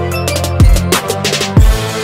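Background music with a steady electronic beat: heavy kick drum hits about once a second, sharper snare hits between them, over a held bass line.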